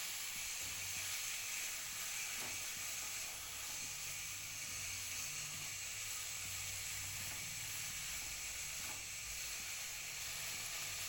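Marinated chicken pieces sizzling steadily as they sear in hot sesame oil in a pan on very high heat.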